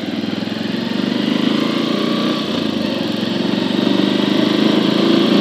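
Bajaj Avenger 160 Street motorcycle's single-cylinder engine running with a steady beat, gradually getting louder as the bike moves off from a stop.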